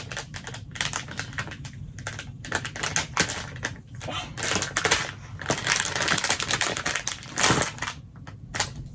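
Plastic packaging crinkling and crackling as it is handled and pulled open by hand, a dense run of irregular clicks with a few louder crackles.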